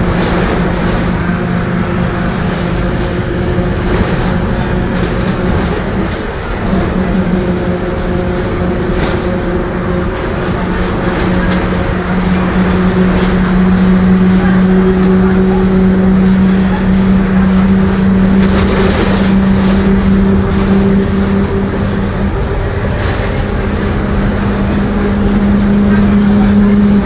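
Rear differential of a Mercedes-Benz OF-1721 bus howling while under way with the engine at low revs: a steady low whine that rises a little in pitch and grows louder about halfway through.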